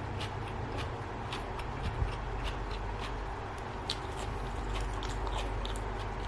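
Close-up chewing of a mouthful of spicy instant-noodle seafood salad: many small sharp wet clicks, several a second, over a steady low hum.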